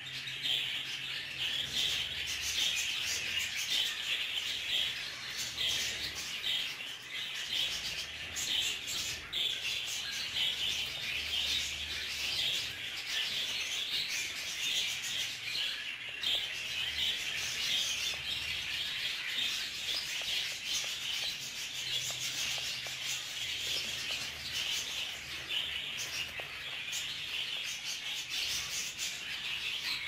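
Many budgerigars chirping and chattering without pause, a dense high twittering that keeps up at a steady level.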